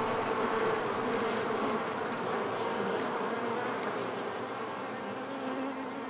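Dense, steady buzzing hum of a crowded honeybee colony on the comb inside the hive, many bees at once with a low drone under it.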